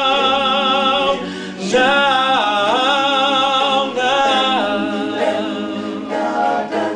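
Male a cappella group: a male soloist holds long notes with vibrato and sings sliding runs over the group's sustained backing chord, with no instruments.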